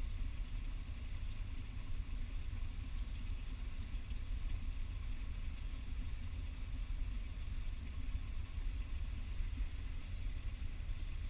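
Steady low rumble with a faint even hiss: outdoor background noise with no distinct events.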